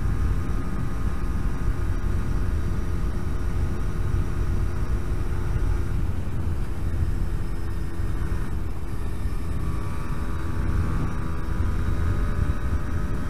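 Yamaha RD125LC YPVS two-stroke single-cylinder engine running at a fairly steady pitch while riding, over heavy low wind rumble.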